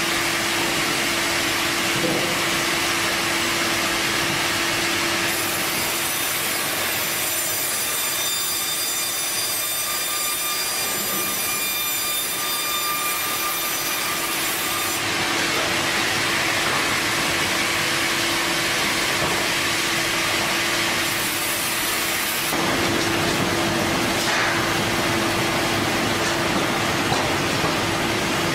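Sawmill saw running steadily and cutting lengthwise through a squared log, taking a thin slab off one face, over a constant machine hum. A high whine rides on top for several seconds in the first half.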